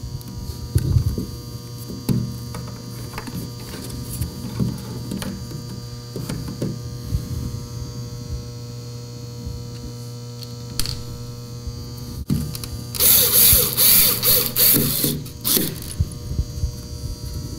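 Steady mains hum, with small clicks and ticks from a hand screwdriver driving panhead screws into a plastic mounting bracket on an outlet box. About a second after a sudden break near the middle, a few seconds of louder, pulsing scraping and rustling noise.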